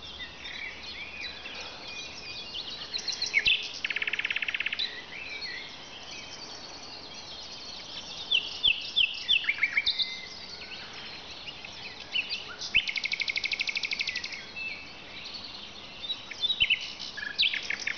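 Common nightingale singing: varied phrases with short pauses between them, among them fast rattling trills of rapidly repeated notes, each about a second long, at about four seconds in and again around thirteen seconds.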